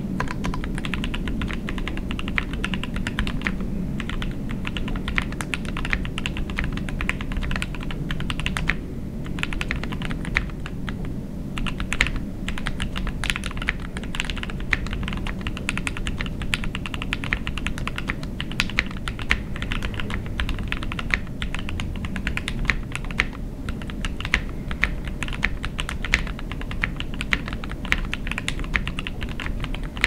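Continuous fast typing on an OwLab Voice 65 gasket-mount mechanical keyboard with lubed ZealPC Tealios V2 linear switches, a PE plate, plate and case foam, and GMK keycaps: a dense, even run of keystrokes, with brief lulls about nine and eleven seconds in.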